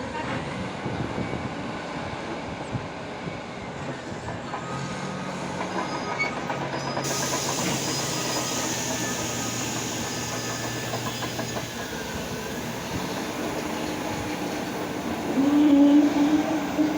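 Caterpillar D8R bulldozer working: its diesel engine running under load and its steel tracks clanking. A louder wavering tone rises briefly near the end.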